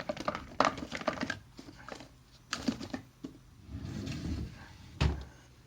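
Small items being handled on a desk: scattered light clicks and knocks, with a dull low thump about five seconds in.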